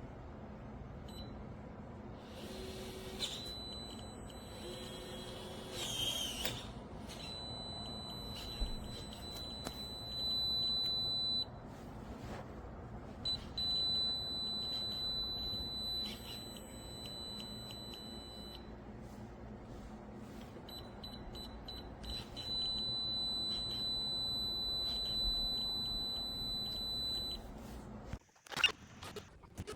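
TEEHO TE002 electronic keypad deadbolt beeping: a run of high electronic tones, some held for several seconds and others broken into quick beeps, with a few clicks from buttons being pressed. A sharp knock comes near the end.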